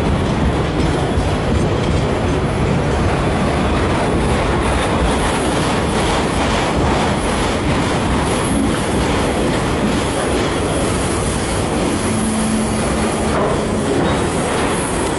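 Canadian National autorack freight train passing close by: a loud, steady rumble of wheels rolling over the rail joints, with a short steady low tone about twelve seconds in.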